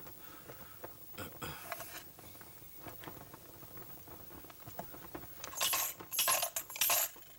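Coins shaken and rattled for a divination, with a few faint clinks and then several loud jangling bursts in the last two seconds.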